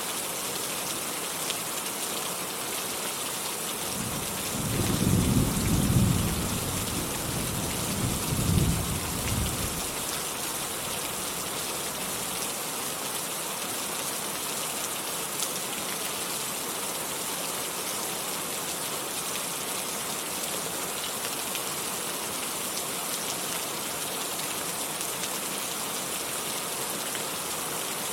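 Steady rain falling, with a roll of thunder about four seconds in that rumbles for around six seconds, swelling twice before it fades.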